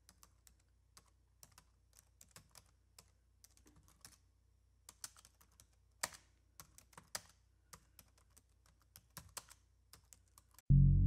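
Faint computer keyboard typing: irregular key clicks, a few a second, over a faint steady low hum. Loud music starts abruptly near the end.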